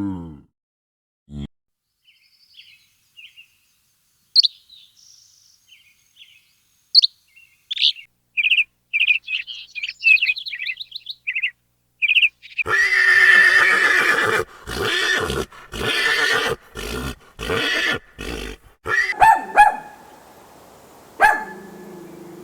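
A small bird chirps and tweets in short high notes. Then, from about halfway, a horse whinnies loudly several times, with abrupt breaks between the calls.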